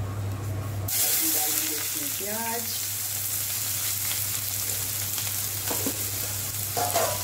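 Chopped onions frying in hot mustard oil in a kadhai: a loud, steady sizzle that starts suddenly about a second in. Before it there is a low steady hum.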